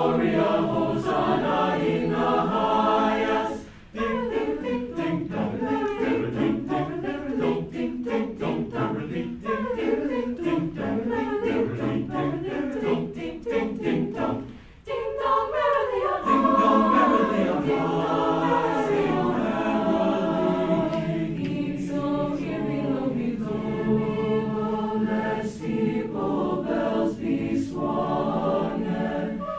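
A mixed-voice high school choir singing, many voices together, with two short breaks between phrases about four and fifteen seconds in.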